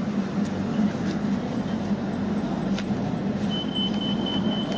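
Hyundai Rotem E32000 electric multiple unit running between stations: a steady rumble with a low hum. A thin, high, steady tone joins about three-quarters of the way in.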